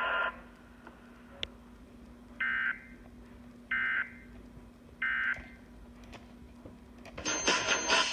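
Emergency Alert System end-of-message signal: three short, identical digital data bursts, each a brief harsh warble about a second and a half apart, over a faint steady hum. A steady multi-pitched tone cuts off just after the start, and music starts near the end.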